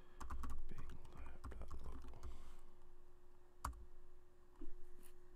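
Computer keyboard typing: a quick run of keystrokes, then after a pause a single louder keystroke as the Enter key is pressed, over a faint steady hum.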